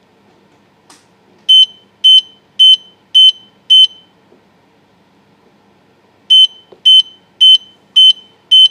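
Metro Mobility M1 mobility scooter's alarm beeping a high tone five times in a row, about two beeps a second, then after a pause of about two seconds another five: the scooter's five-beep fault alarm. A faint click comes about a second in, before the first beep.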